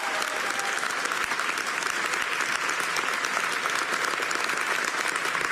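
Crowd applauding, a steady dense clapping that holds at one level.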